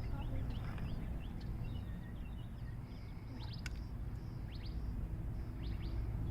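Small birds chirping: many short, falling chirps scattered throughout, over a low steady rumble, with one sharp click about three and a half seconds in.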